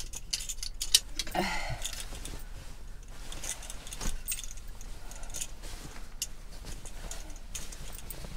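Plastic clothes hangers clicking and knocking together as shirts are hung on them, with the fabric rustling in between.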